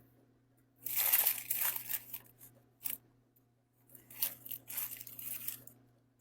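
Food packaging being crinkled and torn open, in two spells of rustling about a second in and about four seconds in, with a sharp click between them.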